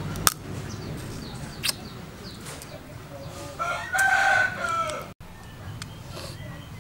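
A rooster crows once, a pitched call about a second and a half long that starts about three and a half seconds in and tails off at the end. Before it come two sharp cracks of crab shell being broken.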